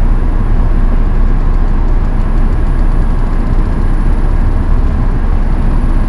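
Steady low rumble and hum of running machinery, with a few faint steady tones above it, from the powered-up CNC bridge saw as its head lifts on the Z axis.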